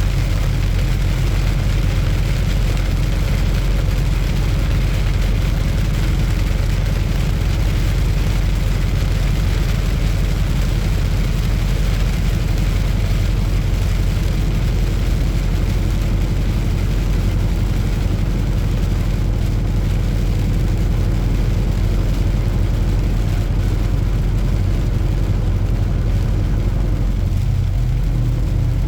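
A semi truck's diesel engine runs steadily over a constant hiss of wet road and rain. The engine note changes slightly near the end.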